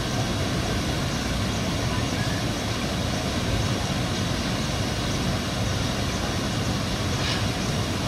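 Manavgat Waterfall's wide, low cascade rushing steadily over a rock ledge into the river pool: a continuous, even roar of falling water.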